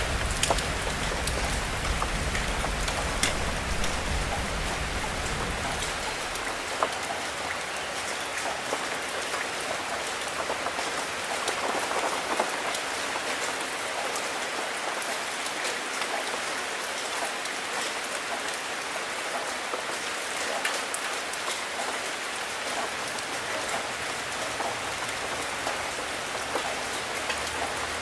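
Steady rain falling on leaves, with frequent sharp ticks of single drops. A low rumble underneath fades out about six seconds in.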